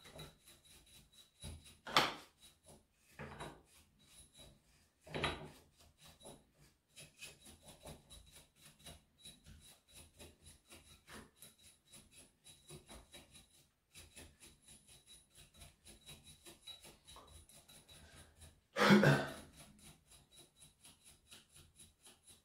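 A small stiff brush scrubbing caked dirt off the flywheel fan vanes of a Husqvarna chainsaw: a steady run of short scratchy strokes, two or three a second, with a few harder scrapes, the loudest about nineteen seconds in.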